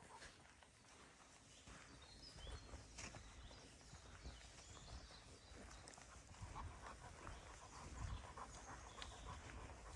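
Quiet footsteps on a dirt forest trail, soft irregular treads, with a few faint high bird chirps.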